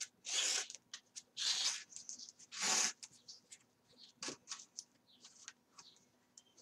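Thread being pulled through the punched holes of a paper signature while sewing a coptic-stitch binding: three long zipping hisses in the first three seconds, then light rustling and small taps of paper being handled.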